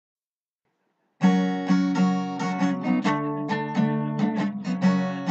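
Music: an acoustic guitar intro of picked and strummed notes, starting about a second in after silence.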